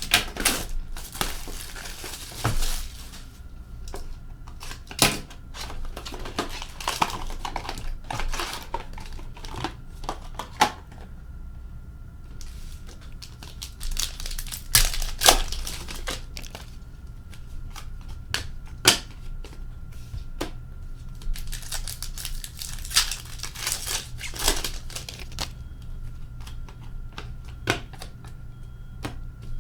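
Sealed trading card box and foil card packs being torn open, wrappers crinkling, with irregular sharp clicks and taps as the packs and cards are handled.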